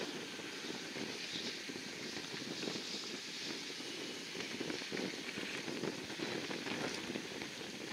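Four turbofan engines of a Boeing C-135-series jet at takeoff power as it lifts off and climbs away: a steady rushing roar, mixed with wind buffeting the microphone.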